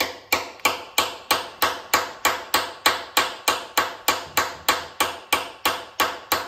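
Hammer tapping in a fast, even rhythm, about three sharp strikes a second, each with a short ring.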